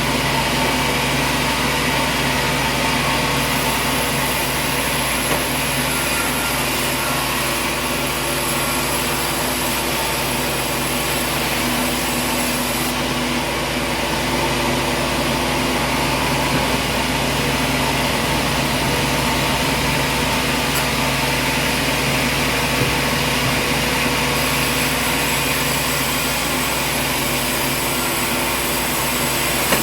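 Machinery running steadily: a continuous engine or motor sound with a few steady tones over a wide hiss, unchanging in level.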